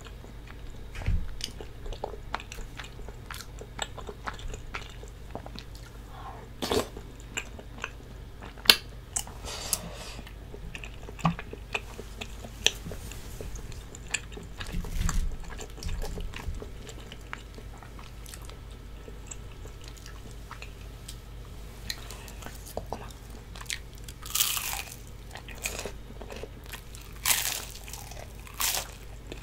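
Close-miked eating sounds: chewing with scattered wet mouth clicks, then crisp crunching bites into battered, deep-fried sweet potato twice near the end.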